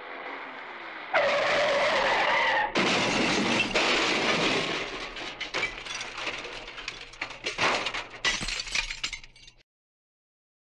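Car-crash sound effect: a rising rush, then tyres screeching about a second in, followed by a long crash of shattering glass and clattering debris that cuts off abruptly near the end.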